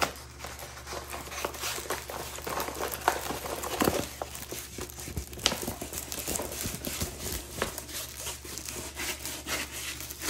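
A rolled diamond painting canvas with a clear plastic cover being unrolled and handled: irregular crinkling and rustling with scattered crackles.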